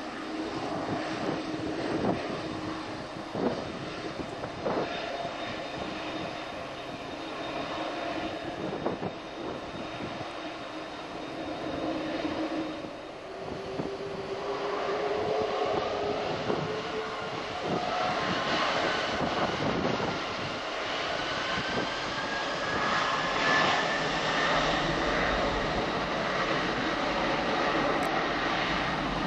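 Airbus A300's twin turbofan engines running as the airliner taxis and turns onto the runway, with a few sharp clicks in the first five seconds. The engine noise grows louder past the halfway point, and a whine rises in pitch as the engines spool up.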